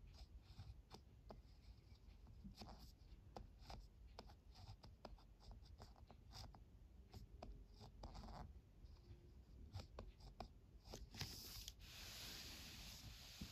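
Ballpoint pen writing on paper: faint short scratches and taps of the tip, one stroke after another, with a longer rustle near the end.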